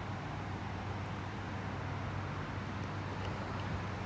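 Steady outdoor background noise: a low, even rumble with a hiss over it and no distinct events.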